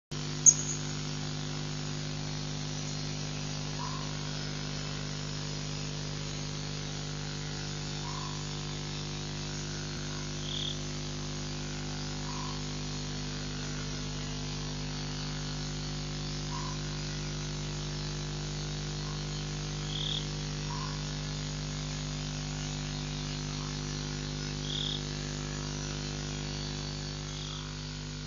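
Steady electrical hum and hiss from the waterhole's live-stream microphone, with a sharp click about half a second in and faint short calls repeating about every four seconds.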